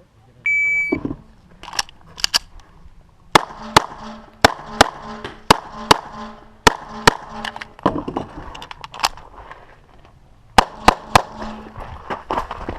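Shot-timer start beep, then a string of pistol shots, often in quick pairs, with a brief pause about ten seconds in before more shots.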